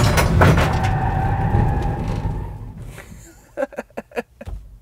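Vauxhall Combo van in an emergency stop from about 45 mph: the tyres squeal in one steady, slightly falling tone for about two seconds while it skids to a halt, and the road noise dies away. A man laughs in short bursts near the end.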